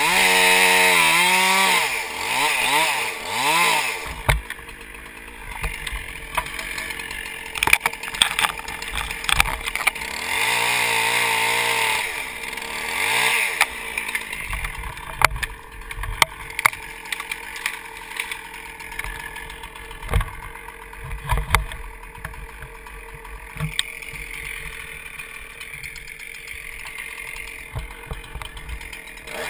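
Two-stroke chainsaw revving up and down in bursts, loud in the first few seconds and again about ten to fourteen seconds in, with quieter stretches between and after that are broken by scattered knocks and thuds.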